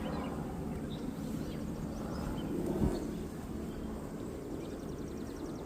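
Honeybees humming steadily around an opened hive, with a brief knock a little before three seconds in, as from a hive frame being handled.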